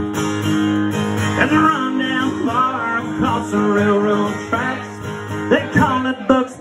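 Acoustic guitar strummed in a live country song, with sung notes over it from about a second and a half in.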